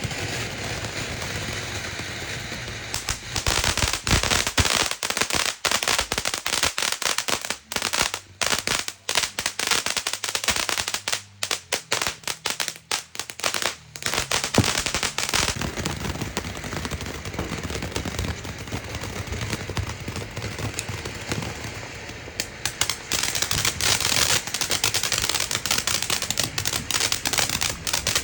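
Firecrackers going off in long rapid strings of sharp pops, with denser crackling bursts starting about three seconds in and again near the end.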